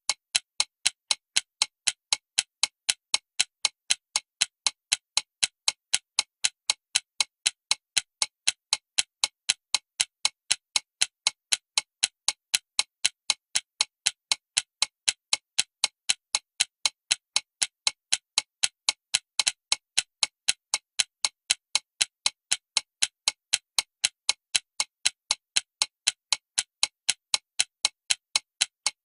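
Alarm clock ticking: sharp, perfectly even ticks at a steady pace, with silence between them and no ringing.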